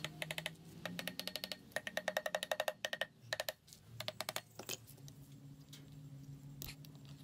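Hammer tapping rapidly on a Honda XL250 engine's aluminium crankcase to knock the case halves apart: two quick runs of light metallic taps, about eight a second, each with a short ring, then a few scattered knocks.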